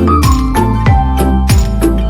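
Background music with a steady drum beat under sustained melodic notes.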